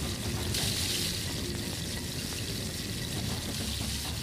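Water pouring into a hot steel wok of frying chicken and garlic, a steady splashing hiss that brightens about half a second in.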